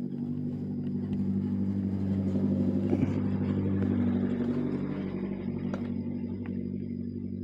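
A motor vehicle engine running at a steady speed, growing louder toward the middle and then easing off, with a few light ticks over it.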